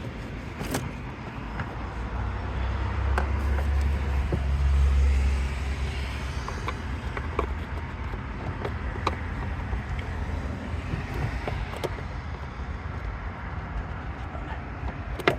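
Low vehicle rumble in a parking lot that swells around the middle and eases off, with scattered small clicks and knocks of plastic trim clips and tools being worked in a car's engine bay, and one sharper click at the very end.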